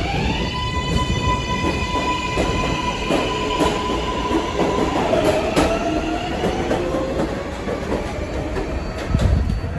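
New York City Subway R188 7 train pulling out of an elevated station. Its propulsion whine rises as it picks up speed, holds a steady pitch, then climbs again about five seconds in, over the clatter of wheels on the rails. A low rumble swells near the end.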